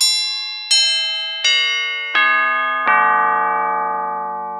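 A run of five bell-like chime tones struck about three-quarters of a second apart, each a step lower in pitch than the one before, ringing on and overlapping. It is an editing sound effect, one chime for each numbered label as it pops up.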